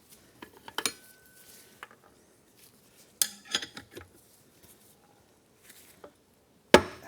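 Metallic clicks and taps as a case-splitting tool is worked on an Aermacchi Big Bore engine's crankcase, then near the end one sharp, loud pop: the cases breaking free of the press-fit bearings.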